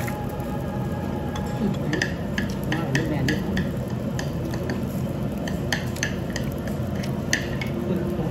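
Eating at a restaurant table: many short clicks and clinks of metal chopsticks and dishes, with chewing, over a steady background hum.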